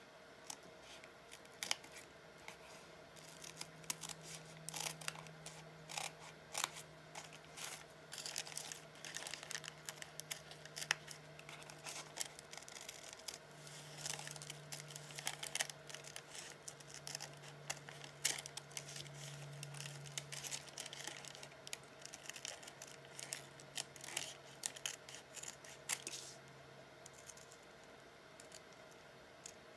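Small scissors snipping through a paper pattern and fabric: many quick, irregular cuts with paper rustling, stopping a few seconds before the end.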